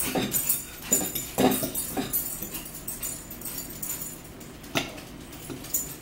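Table sounds of a meal: a metal spoon clinking and scraping in a soup bowl and crisp bread being broken apart, as a string of short, separate clicks and rustles, busiest in the first two seconds and again near five seconds.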